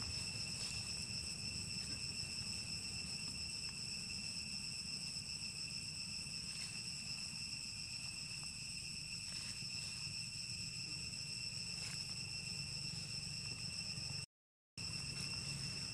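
Steady insect chorus: one unbroken high ringing tone with overtones, over a low rumble. The sound drops out for about half a second near the end.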